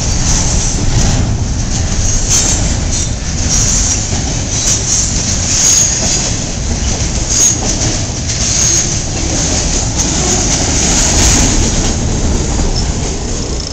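Intermodal freight train cars (double-stack container cars and trailer flatcars) rolling past close by: a steady loud rumble and clatter of steel wheels on the rails. Brief high-pitched wheel squeals recur every second or two.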